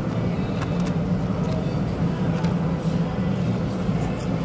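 Steady low hum of restaurant background noise with faint indistinct chatter, broken by a few soft clicks and taps of eating with a plastic fork.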